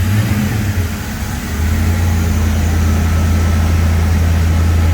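HSV Walkinshaw's 5-litre twin-throttle-body V8, just started, running unevenly for about a second and a half, then settling into a steady idle.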